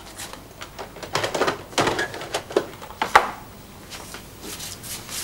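A run of light clicks and knocks from a videocassette and its plastic case being handled at a video recorder. The sharpest knock comes about three seconds in.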